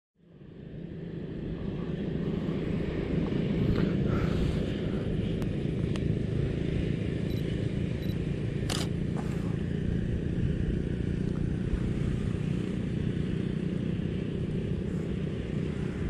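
Wind buffeting an action camera's microphone in an open field, a steady low rumble that fades in over the first two seconds. One sharp click sounds a little before the halfway point.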